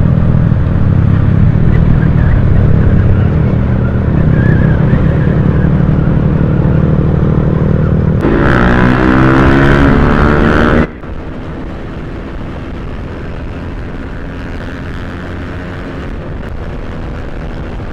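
Motorcycle engine running hard at highway speed with road and wind noise. About eight seconds in, the engine note rises and falls for a few seconds. At about eleven seconds the sound drops suddenly to a quieter, steady engine drone.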